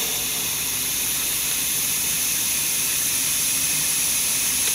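Compressed air hissing steadily into a homemade radiator held underwater, pressurizing it for a leak check.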